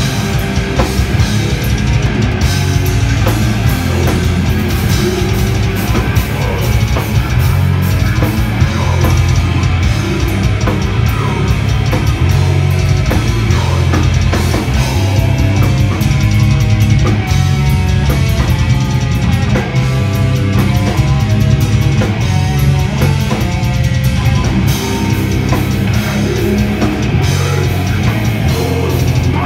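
Heavy metal band playing live: distorted electric guitars over a drum kit, loud and continuous, with a repeating higher guitar line standing out in the middle.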